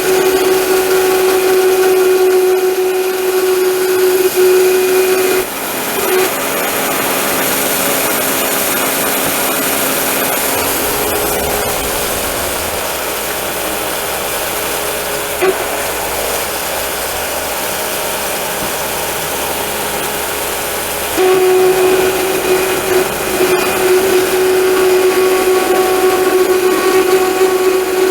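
Homemade sawmill running: its motor and blade give a steady whine that changes to a lower, rougher sound from about five seconds in until about twenty-one seconds in, then returns to the steady whine.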